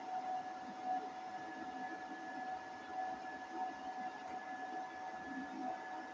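TIG welding arc on the steel of a backhoe bucket, a steady hiss with a steady high whine, the heat worked by foot pedal as filler rod is fed in.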